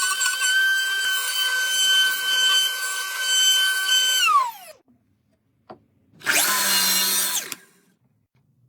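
A small power tool's motor running at a steady high whine, then released and winding down to a stop about four and a half seconds in. After a click, it runs again for about a second.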